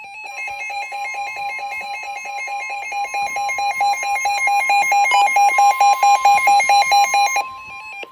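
NOAA Weather Radio's steady 1050 Hz warning alarm tone, the signal that a warning message follows. A rapid electronic beeping from the weather radio's own alert, about five beeps a second, runs over the tone, grows louder, and stops shortly before the tone ends.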